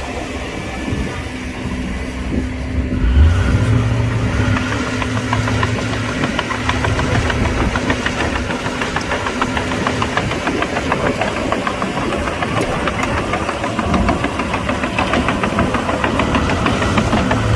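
Heavy earthmoving machinery diesel engines running steadily under work, with a fast, even clatter through most of it.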